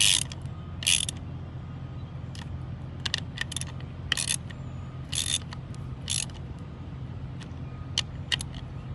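Hand ratchet wrench working in short strokes, tightening the bolts of a semi truck's wheel-hub cap down over a new seal. Brief rasping ratchet bursts come at uneven gaps, with a few lone clicks between and a steady low hum underneath.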